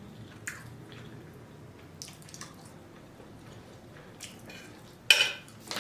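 Wet mouth sounds of someone chewing seafood linguine: a few soft, scattered smacks, then a short, louder rush of noise about five seconds in.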